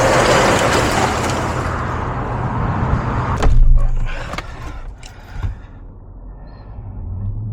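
A loud rushing noise for the first three seconds, then a vehicle door shutting with a heavy thump about three and a half seconds in. Under it all, a steady low engine idle, the 2.4-litre four-cylinder of a Jeep Patriot that is misfiring on cylinder 2.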